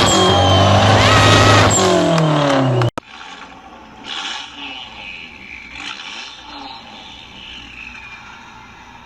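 Car engine and exhaust running at high revs, the pitch dropping as the revs fall, then cutting off abruptly about three seconds in. What follows is much quieter, with faint rushing swells and a faint falling whine.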